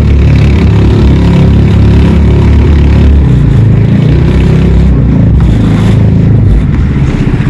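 Small boat engine running loudly and steadily, its low note easing slightly near the end.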